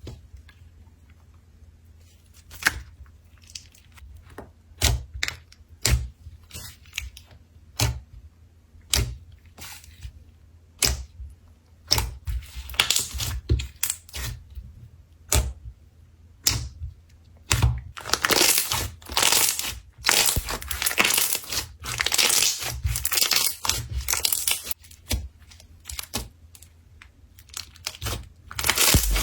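Slime being squeezed and worked by hand, making sharp wet pops and crackles. They come one at a time at first, then crowd together into near-continuous crackling about two-thirds of the way in.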